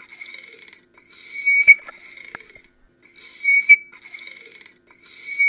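Title-card sound effect: a high whistling tone that swells three times, each swell peaking in a sharp click.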